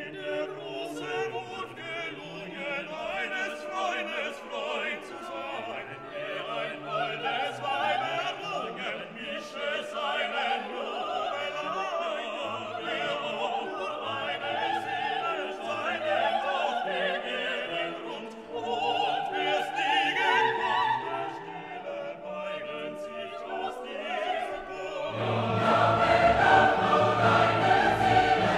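Classical music with operatic singing over an orchestra, laid over the footage; about 25 seconds in it swells louder and fuller.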